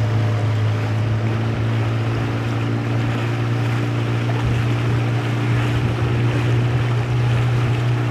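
A river boat's outboard motor running at a steady speed, a constant drone, with rushing water and wind noise on the microphone.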